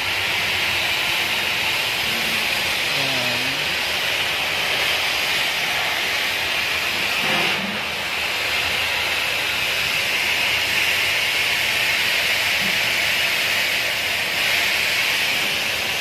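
Loud, steady hissing noise with a brief dip about halfway through, and faint voices low underneath.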